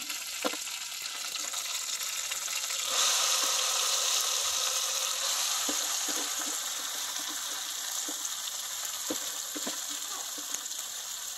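Onions and tomato paste frying in oil in an aluminium pot, a steady sizzle that gets louder about three seconds in as shredded cabbage is tipped into the hot pot, with a few soft knocks.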